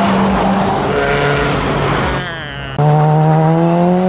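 Modified car engines accelerating away. About three seconds in the sound switches abruptly to a louder engine whose pitch rises steadily as it pulls away.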